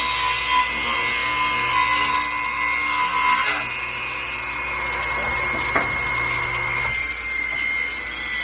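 Table saw running with a steady whine, its blade cutting through a scrap wood board for the first three and a half seconds and then spinning free. Near the end the whine starts to fall in pitch as the saw winds down.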